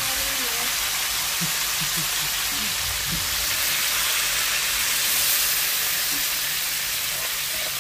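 Crab frying in a hot pan: a steady sizzle through the whole stretch.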